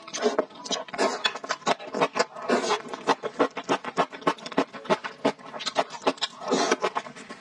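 Close-miked chewing and slurping of black bean sauce noodles with grilled eel and kimchi: wet smacking and clicking mouth sounds several times a second, with one longer slurp about six and a half seconds in.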